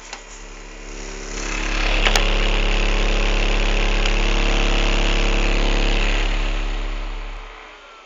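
Desktop PC's cooling fans spinning up to full speed, running loud and steady with a low hum and a whir for about four seconds, then winding down near the end. A click comes at the start, and a sharp tick about two seconds in.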